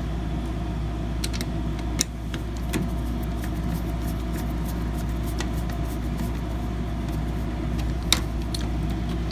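Small clicks and taps of screws being started and the CPU heat sink and back plate being handled, a few scattered over several seconds, over a steady low hum.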